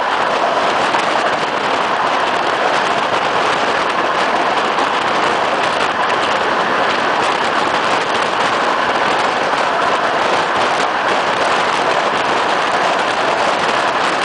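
Steady rushing noise of a moving passenger train heard from an open carriage window, the rolling of the train mixed with wind on the microphone.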